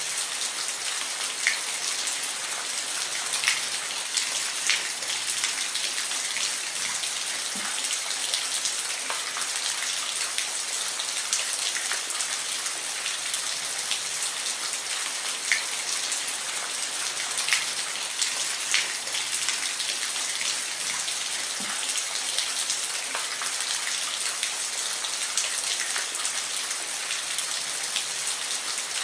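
Steady rain falling on a surface, an even hiss with close drops ticking sharply here and there.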